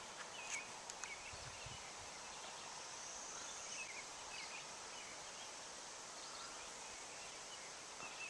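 Faint outdoor background noise with a few short, faint bird chirps scattered through it.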